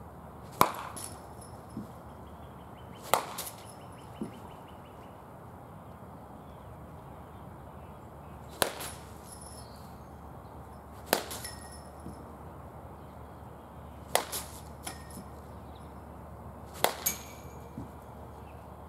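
A baseball bat hitting pitched baseballs six times, a few seconds apart: each hit a sharp crack with a brief high ring, followed by one or two softer knocks.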